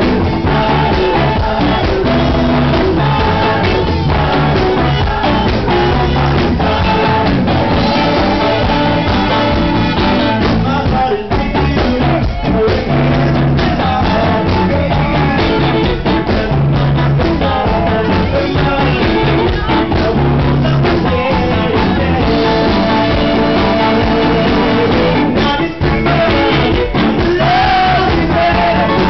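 Live band music: a group of singers over a band with saxophones and electric guitar, playing continuously.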